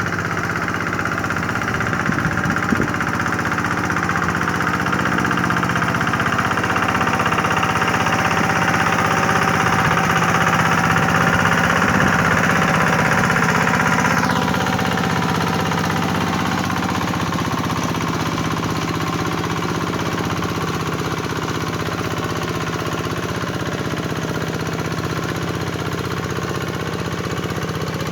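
Tractor engine running steadily, with a change in tone about halfway through.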